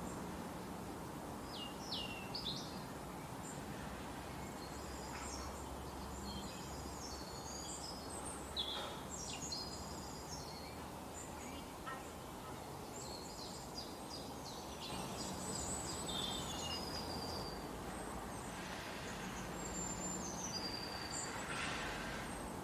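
Several songbirds chirping and trilling over a steady background hiss, with short high calls scattered throughout.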